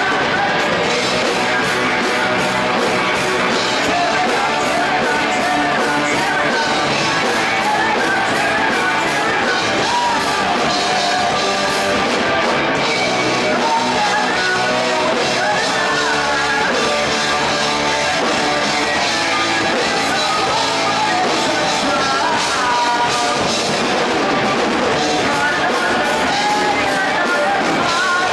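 A rock band playing a song live, with a singer's voice over guitars and drums, continuous and loud.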